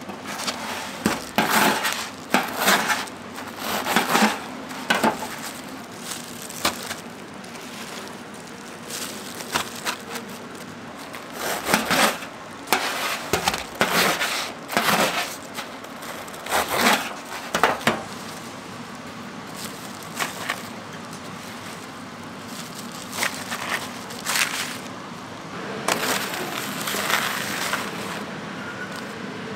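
A knife sawing through crisp, crumb-coated deep-fried toast croquettes on a metal counter, in irregular crunching strokes. The crunching thins out after about eighteen seconds, with a few last strokes later on.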